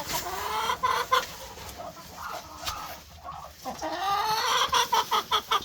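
Chickens clucking: a run of short calls, thinner in the middle and coming quickly one after another near the end.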